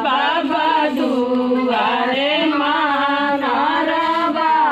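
A group of women singing a traditional ritual folk song together, unaccompanied, in long drawn-out notes with no drum.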